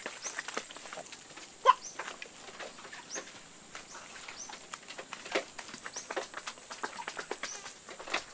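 Hands pressing and patting wet clay and grass onto a woven bamboo roof, with scattered rustles and light clicks and one louder pop about two seconds in. Short high bird chirps come and go in the background.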